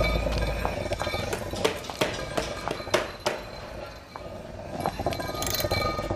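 High-heeled shoes clicking on a concrete floor, a step about every half second, with the iron head of a sledgehammer clinking and scraping along the floor.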